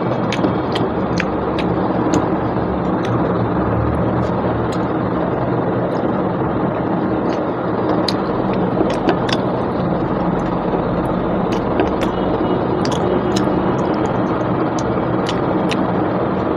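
Wet chewing and lip-smacking clicks of someone eating rice and mutton with their hands, over a steady loud background rumble.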